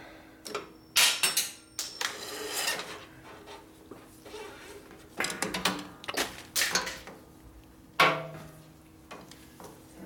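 Metal tools and parts being handled on a workbench: a series of clinks and knocks with a scraping rub, the loudest a ringing metal clank about eight seconds in.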